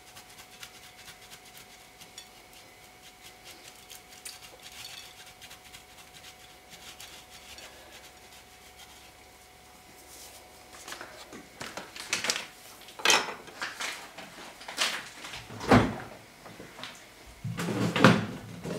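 Hard cheese being grated by hand on a metal grater, a faint quick rasping. From about halfway it gives way to louder knocks and clatters of kitchen things being handled, the loudest near the end as the grater is set down on the counter.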